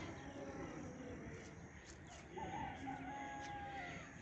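A rooster crows once, faintly, starting about two and a half seconds in: a wavering start, then a long held note.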